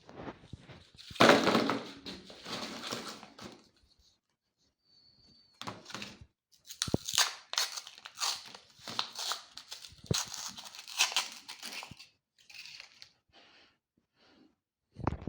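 Irregular bursts of crinkling and crunching, with a few sharp knocks.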